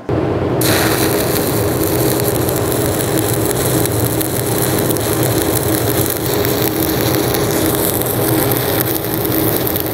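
Stick (shielded metal arc) welding: the arc of a burning electrode rod laying a fill pass in a beveled open-root joint on 3/8-inch steel plate, giving a steady loud crackle and sizzle. The arc strikes right at the start, and its sharper crackle builds about half a second in.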